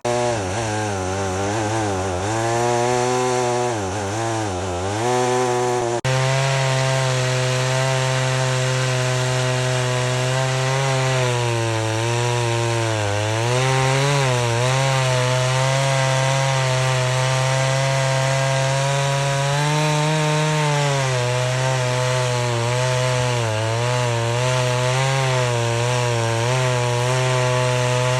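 Stihl chainsaw on a chainsaw mill running hard under load, ripping through an oak crotch. The engine pitch sags and recovers a few times as the saw is loaded in the cut.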